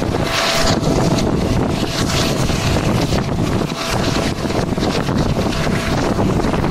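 Wind buffeting the microphone from the window of a moving train, over the train's running noise.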